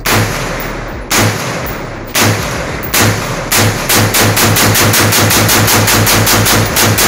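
A compact rifle firing: a few single shots about a second apart, then the pace picks up into a rapid string of about four to five shots a second from about four seconds in.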